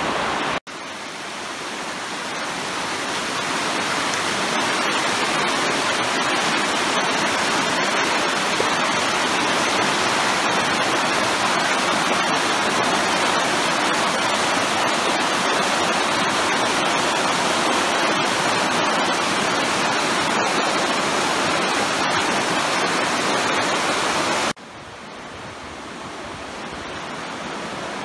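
River rapids rushing over rocks in white water, a steady, even rush that swells over the first few seconds. About 24 seconds in it cuts abruptly to a quieter, softer rush of flowing water.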